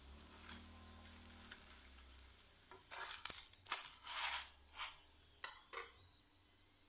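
Roti sizzling in ghee on a hot tawa (flat iron griddle), with a steel spoon scraping over the bread as the ghee is spread. A run of louder scrapes and a sharp click comes about three to five seconds in.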